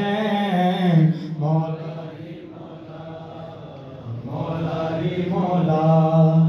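A man chanting a devotional manqabat in long, drawn-out melodic notes; the voice grows fainter a couple of seconds in and swells again near the end.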